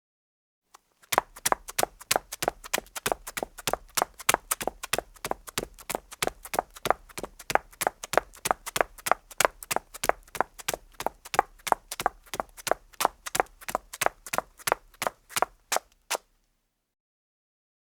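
Women's high heels clicking on a hard floor in quick, even steps, about four a second, stopping shortly before the end.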